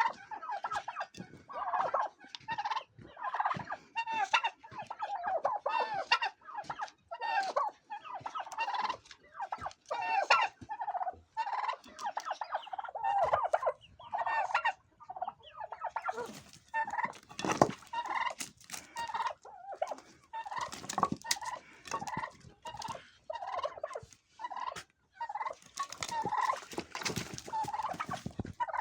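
Big 6 (broad-breasted) turkey gobbling over and over, a rapid rippling call about once a second. From about the middle on, the calls come mixed with sharper, noisier bursts.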